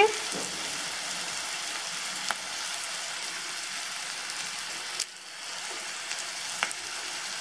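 Chopped onions and halved green chillies frying in hot ghee in a wok: a steady sizzle, with three sharp pops spread through it.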